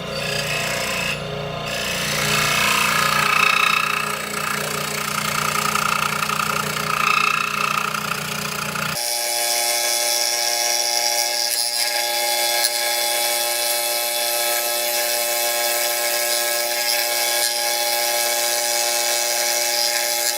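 Electric scroll saw running steadily, its blade cutting through a wooden block. About nine seconds in, the low hum drops away suddenly and a thinner, higher sawing sound carries on.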